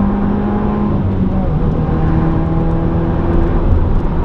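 2015 Subaru WRX's turbocharged 2.0-litre flat-four running through a muffler delete, heard from inside the car while driving. The engine note holds steady, then steps down to a lower pitch about a second and a half in.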